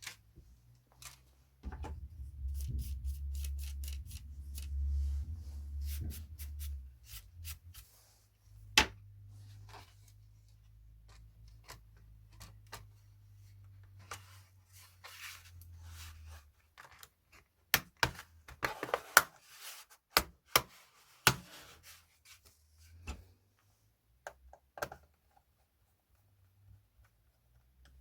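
Irregular clicks, taps and knocks of a laptop's plastic case and small parts being handled, with a low rumble through the first half that is loudest early on.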